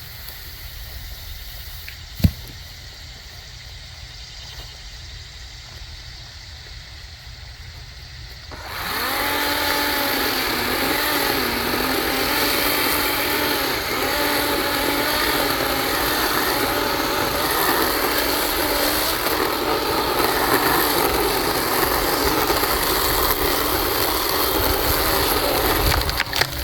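Small battery-powered chainsaw switching on about nine seconds in, its motor whine rising quickly and then running loudly with a wavering pitch as the load changes while it cuts. Before that, only a low rumble and a single sharp knock about two seconds in.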